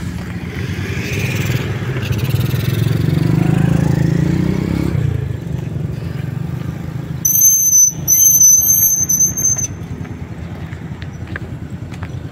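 A motorcycle engine running past, swelling and then fading over the first few seconds. It is followed by a loud, high-pitched squeal that breaks once and stops after about two and a half seconds.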